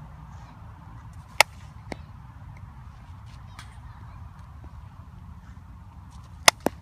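Softball bat striking a ball twice, two sharp cracks about five seconds apart, each followed shortly by a fainter knock, over a steady low rumble.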